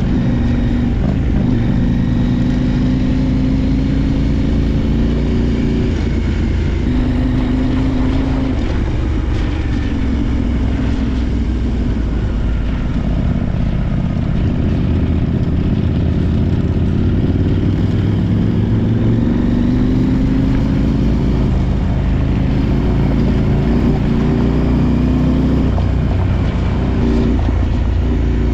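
Parallel-twin adventure motorcycle engine running under way off-road, its pitch rising and falling again and again as the throttle is worked and gears change, over low wind rumble on the microphone.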